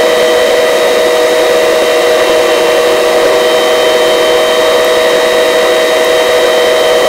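Helicopter turbine and rotor running steadily at a low hover: a loud, even whine with several held high tones over a rushing noise, with no change in pitch.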